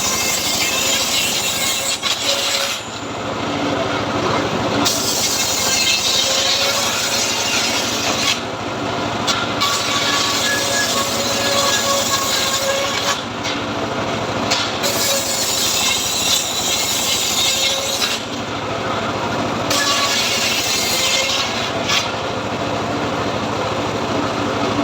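Homemade srekel sawmill cutting teak: a motor runs steadily under the rasping of the saw through the wood, which swells and eases off every few seconds as the cut goes on.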